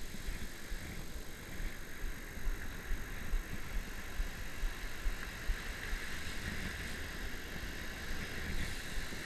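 Wind buffeting the microphone with a steady rush of surf washing over sand, and a spinning reel being wound in under the load of a bent rod.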